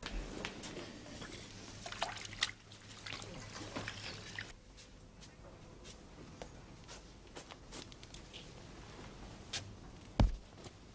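Quiet handling of clothes: fabric rustling with light clicks and taps, busier in the first few seconds, and one dull thump about ten seconds in.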